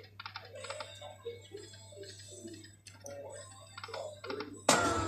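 Lightning Link poker machine game sounds: a rapid run of ticks and short electronic tones as the reels spin and stop, with a sudden loud electronic sound near the end as the next spin starts.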